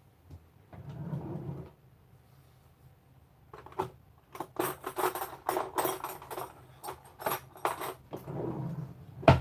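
Someone rummaging among and handling packaged items: a run of crinkly rustles and sharp clicks, then one loud thump near the end as something is set down.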